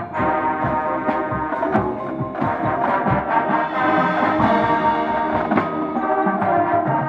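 High school marching band playing: sustained wind and brass chords over repeated percussion strikes.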